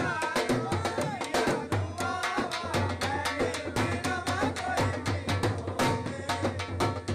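Dhol drum played in a fast, driving rhythm for jhumar dancing, with a voice singing over the beat.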